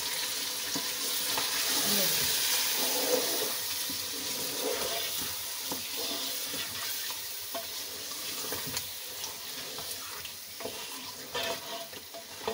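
Mutton and marrow bones (nalli) frying in hot oil with spices in an aluminium pressure-cooker pot, stirred with a metal spoon: a steady sizzle with scattered clicks of the spoon. This is the bhuna stage of cooking nihari, searing the meat and spices. The sizzle fades gradually toward the end.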